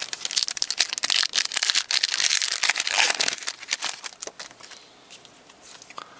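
Trading card pack wrapper crinkling and cards being handled, a dense crackle that dies down after about four and a half seconds.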